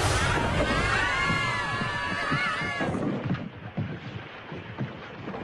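Cartoon sound effects: a wavering, warbling tone over a rumble for about three seconds, then a quieter low rumble.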